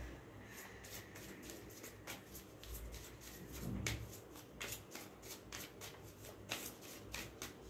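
A tarot deck being shuffled by hand: a faint, irregular run of quick card slaps and snaps, several a second.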